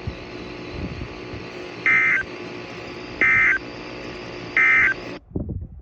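Emergency Alert System end-of-message data tones on a NOAA Weather Radio broadcast: three short buzzy digital bursts about 1.3 seconds apart over steady radio hiss, signalling the end of the alert message. The hiss cuts off suddenly near the end, followed by a low thump.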